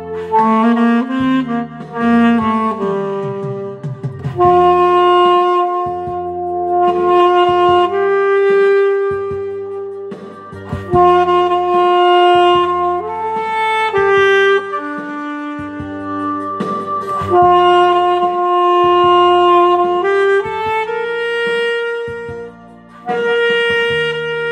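Instrumental music: a saxophone plays a slow melody of long held notes over a backing track with a bass line.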